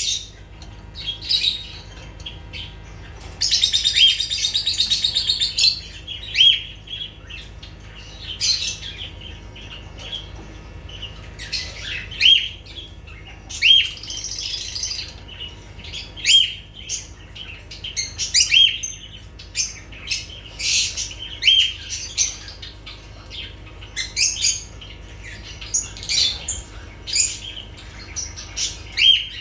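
Lovebirds chirping: many short, sharp, high-pitched calls repeated throughout, with a fast rattling chatter about four seconds in and another burst of chatter around fourteen seconds.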